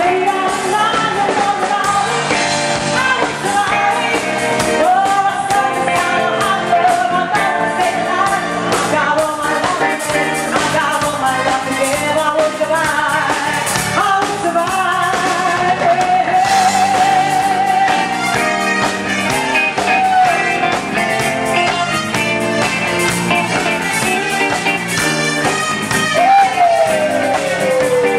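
A live band plays with a singer holding long, wavering notes over guitar, keys and drums. Near the end a long note slides steadily down in pitch.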